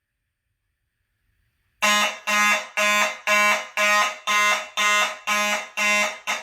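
Fire alarm horn sounding in even pulses, about two a second, set off by the pulled manual pull station. It begins about two seconds in and cuts off at the end when the alarm is silenced.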